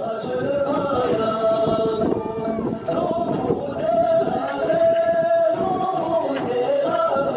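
A group of men singing a dance song together in long held, chant-like notes, with a few sharp knocks along the way.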